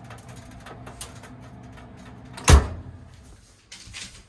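A steady low hum, then a built-in oven's door is shut with a single loud thud about two and a half seconds in, ringing briefly.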